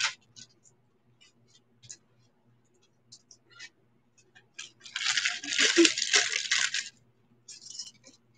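Small metal jewelry pieces clinking and rattling as they are handled, in a dense clatter of about two seconds just past the middle, with scattered faint clicks before it and a shorter clatter near the end.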